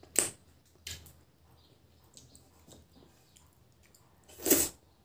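Close-miked eating sounds as food is eaten by hand: wet mouth and finger smacks with quiet chewing between. There is a sharp smack just after the start, a small click a second later, and a longer, louder wet smack near the end.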